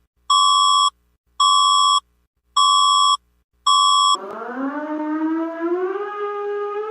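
Emergency alert alarm audio: a high electronic beep sounds four times, about once a second. Then a siren starts low and rises in pitch before levelling off.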